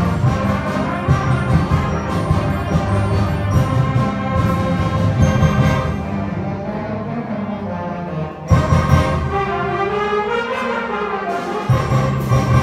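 Youth concert band playing, with trumpets to the fore over low brass and percussion. The music thins out about six seconds in, then the full band comes back in with a sudden loud accent a couple of seconds later and carries on with held brass chords.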